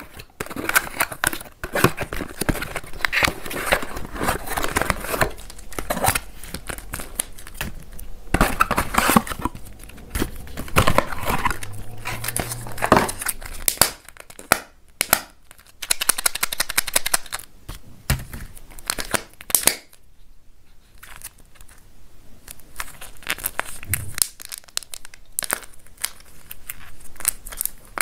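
Kinder Joy egg packaging handled by hand: the cardboard box and the eggs' plastic wrappers crinkling and tearing in a dense run of crackles and clicks, pausing briefly twice.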